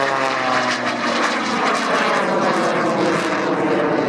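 An aerobatic biplane's 400-plus-horsepower piston engine and propeller running at high power in a steep climb. Its pitch falls slightly over the first second, then it settles into a steady, rough drone.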